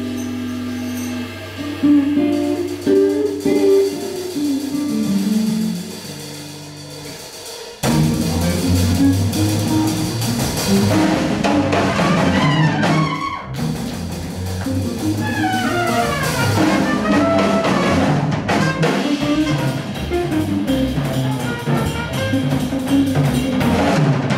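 Live jazz trio. An electric guitar plays alone at first, carrying both a low bass line and the chords and melody. About eight seconds in, the drum kit and a brass horn come in together, and the full band plays on with cymbals and horn lines over the guitar.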